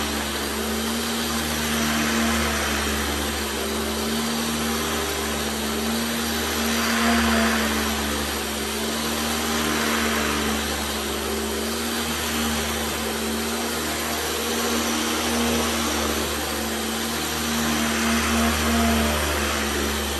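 1975 Hoover Celebrity II canister vacuum running with its power nozzle on carpet: a steady motor hum over a rushing hiss that swells and eases every few seconds as the nozzle is pushed back and forth.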